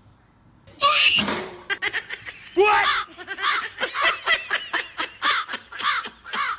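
A person laughing in a rapid, repeated string of ha-ha sounds, starting about two and a half seconds in. About a second in there is a short, loud burst of noise.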